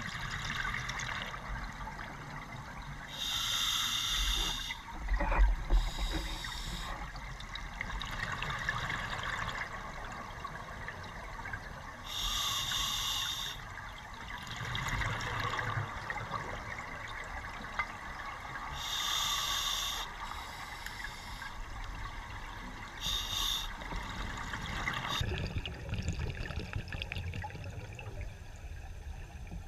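Scuba diver breathing through a regulator underwater: a hiss of bubbling exhaust bursts about every seven seconds, with a steady underwater hiss between them. A single knock about five seconds in.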